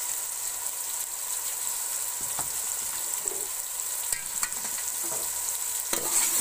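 Chopped tomatoes and garlic sizzling in hot oil in a metal pot, a steady frying hiss. Near the end a spoon starts stirring the mixture against the pot.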